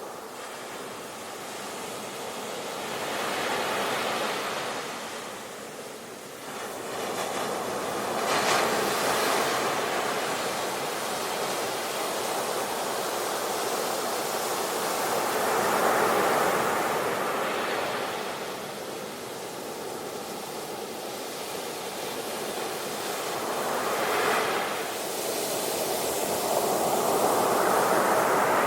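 Ocean waves breaking and washing on a shore, the surf swelling and ebbing every few seconds, with a sharper crash about eight seconds in and another near the end.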